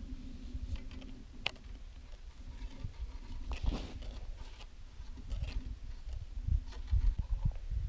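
Wind rumbling on the microphone, with scattered small clicks and rustles as a flagged winter tip-up is handled and set; one sharp click about 1.5 s in and a louder rustle near the middle.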